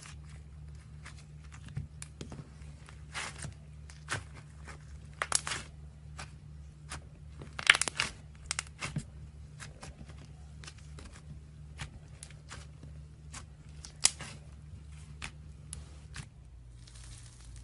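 Slime being handled, making irregular sticky crackles and pops, with a few louder snaps about 5, 8 and 14 seconds in, over a steady low hum.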